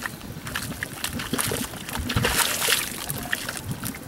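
Hot spring pool of grey, muddy water bubbling and sloshing, gurgling in irregular spurts.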